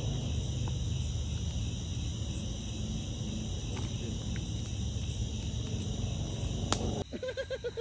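Night insects, crickets, trilling in steady high tones over a steady low rumble. The sound changes abruptly about seven seconds in, giving way to a brief run of quick pulses.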